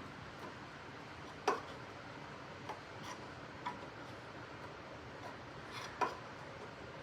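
Scattered light clicks and knocks of door hinge hardware being handled as the hinge is taken off, the two loudest about one and a half seconds in and near six seconds, over a steady hiss.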